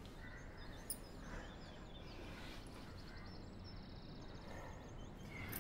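Quiet background ambience with faint bird chirps, and a soft click about a second in.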